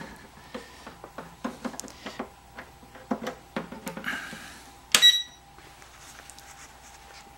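Power plug and cord of a vibration-plate fitness machine being handled and pushed into an outlet: a run of small clicks and rustles. About five seconds in comes a sharp click and a short electronic beep, the machine's control panel taking power.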